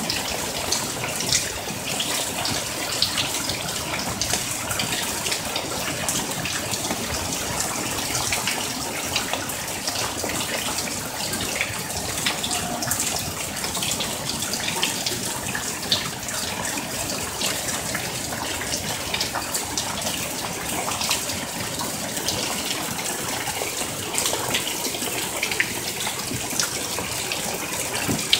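Heavy monsoon downpour: a steady hiss of rain splashing onto a flooded concrete patio and a swimming pool, dotted with many small sharp splashes, with water pouring in streams off the edge of the patio roof.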